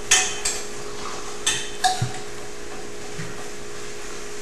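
Drinking glasses clinking and knocking against each other or a table: a few sharp ringing clinks in the first two seconds, the loudest right at the start and about a second and a half in. Under them runs a faint steady hum.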